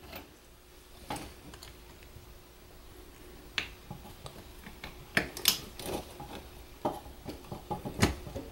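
Handling noise while insulated crimp-on spade connectors are pushed onto the pins of a rocker switch in a metal control panel: a few small sharp clicks, scattered irregularly, over faint rustling of wires.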